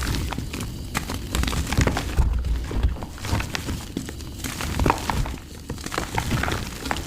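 Dry mud lumps crumbling and cracking: a dense run of crackles and snaps with dull low knocks underneath.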